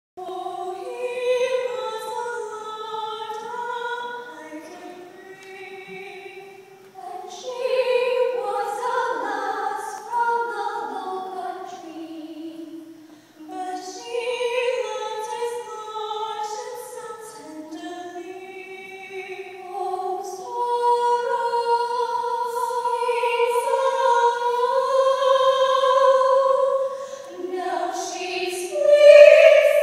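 Two female voices singing a choral duet without accompaniment, in long held and gliding phrases with short breaths between them.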